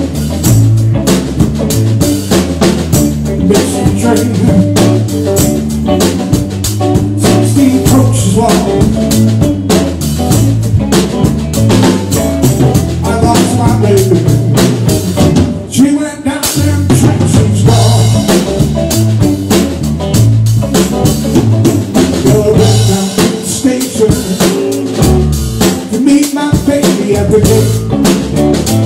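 Live blues band playing, with electric guitar and a drum kit keeping the beat.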